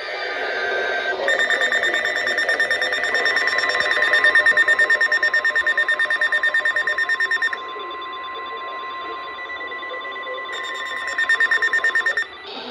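NOAA Weather Radio alert signalling before a new warning: a steady electronic warning alarm tone, with a loud, fast-pulsing electronic alert beep over it for about six seconds and again for a couple of seconds near the end.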